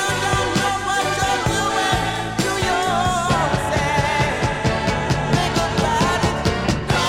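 1970s soul record playing: a band with a steady drum beat and bass, and singing whose line bends and glides in pitch over it.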